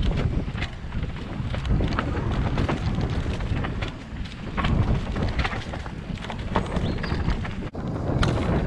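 Mountain bike riding fast down a dirt singletrack, heard from a camera on the rider: wind buffeting the microphone over a low tyre rumble, with many small clicks and rattles as the bike runs over roots and stones. The sound drops out for an instant near the end.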